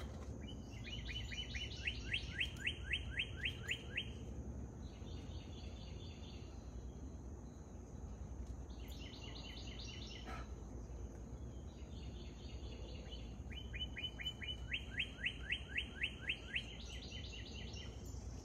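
Songbirds singing. One bird twice repeats a run of quick, clear downslurred notes, about four a second for some three seconds. Shorter chirping trills come between the runs, over a steady low rumble.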